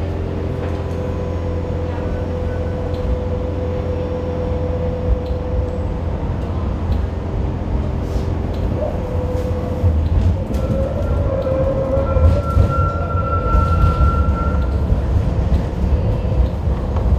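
Kawasaki-built Hong Kong Light Rail car running on track, with a steady hum and rumble. From about ten seconds in the rumbling grows rougher and louder, with a thin high tone for several seconds.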